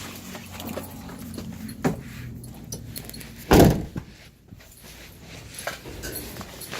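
A door shutting with a single loud thump about three and a half seconds in, after a lighter knock near two seconds, with scattered small clicks around it.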